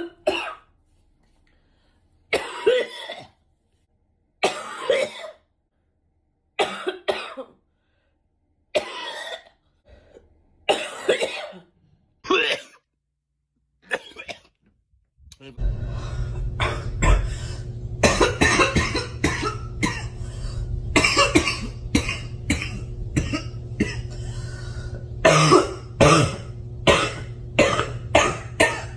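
Human coughing: single short coughs about every two seconds with dead silence between them. About halfway a steady low background hum comes in, and over it runs a long fit of rapid coughs, several of them loud.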